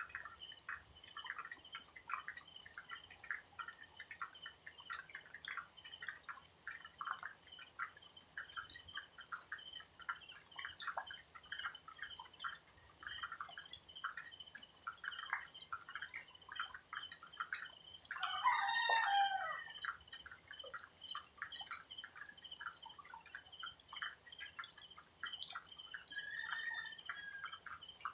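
Pre-dawn outdoor ambience: a steady high insect trill with a dense, irregular patter of short pips. About two-thirds of the way through a rooster crows once, a call of about a second and a half that falls in pitch at the end, with a fainter call near the end.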